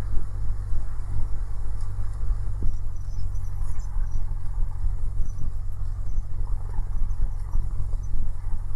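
Cessna 172's piston engine running at low taxi power, a steady low drone heard from the cockpit as the aircraft rolls onto the runway; its note shifts slightly a few seconds in.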